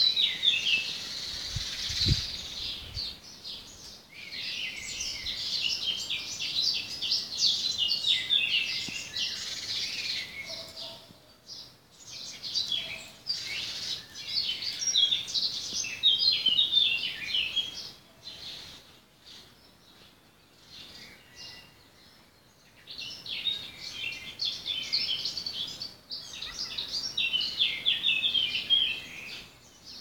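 Small songbirds chirping and twittering in the trees, many quick calls overlapping, in bursts of several seconds with short lulls between. There is a brief low thump about two seconds in.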